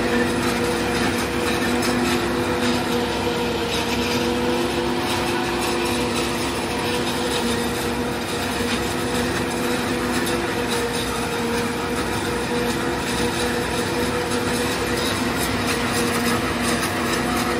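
Tractor-drawn single-row forage harvester chopping standing corn for silage: the tractor engine pulls under steady load while the cutting drum and blower run, a constant hum of a few steady tones over a dense rushing noise.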